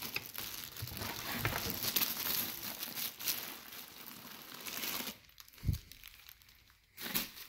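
Packing material crinkling and rustling as armour is unwrapped from its box. The rustling dies away about five seconds in, followed by a single low thump.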